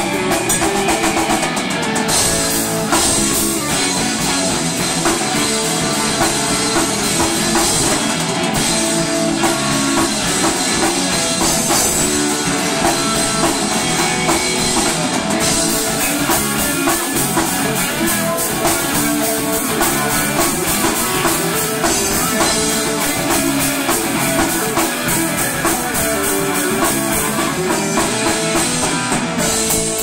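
Rock band playing live: electric guitars and drum kit, loud and steady.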